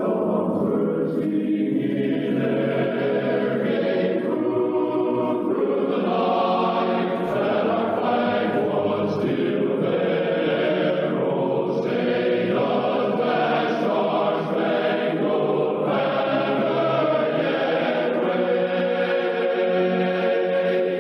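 A choir singing slow, sustained chords with musical accompaniment.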